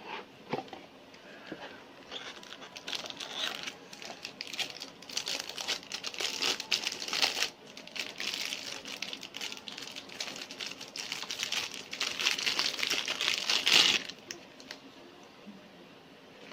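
Plastic packaging crinkling and crackling as it is handled and unwrapped, in irregular spells starting about two seconds in and stopping sharply near the end, loudest just before it stops.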